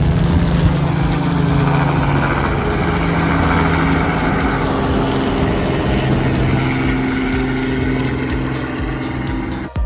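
Small two-bladed tour helicopter flying past low and climbing away: a steady engine and rotor drone that fades a little near the end.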